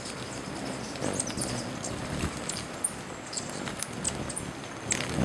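Hummingbirds crowding a nectar feeder: a steady low whir of many wingbeats with scattered short, high chips and squeaks.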